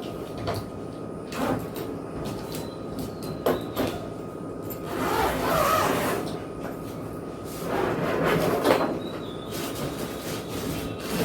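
Hard-shell trolley suitcases being handled while a smaller nested case is pulled out of a larger one: scattered knocks and clicks, with two longer stretches of scraping and sliding about halfway through and again near the end.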